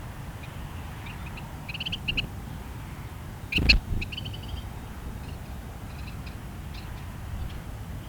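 Small birds calling at a ground feeder: quick runs of short, high chirps, with fainter calls near the end. About halfway through there is one sudden loud knock, the loudest sound. A steady low rumble runs underneath.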